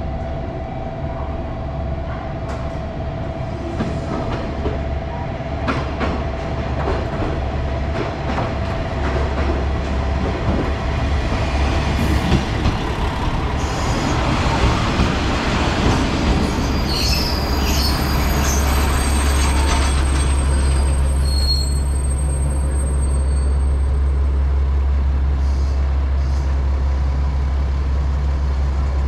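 KiHa 47-series diesel railcar pulling into a station platform: its wheels clack over the rail joints, and its brakes squeal in thin high tones as it slows, about two-thirds of the way in. Once it stops, its diesel engine idles with a steady low hum.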